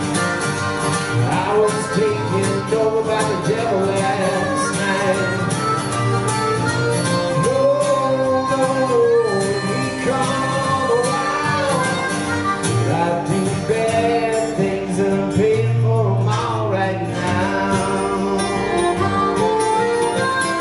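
Harmonica playing an instrumental break with bending notes over acoustic guitar accompaniment.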